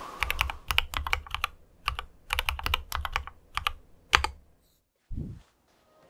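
Typing on a mechanical keyboard with lubed Cherry MX Black linear switches and PBT keycaps: quick runs of keystroke clacks in several bursts, stopping about four seconds in. A single low, dull thump follows near the end.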